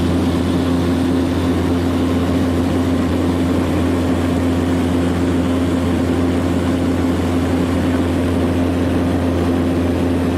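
An engine running at a steady speed: a constant, loud low drone with a steady hum, unchanging throughout.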